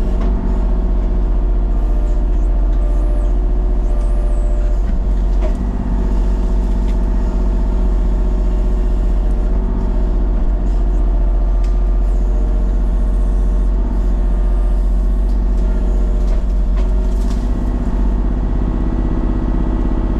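A large engine running steadily at one speed, a deep, unchanging drone, with a few faint knocks over it.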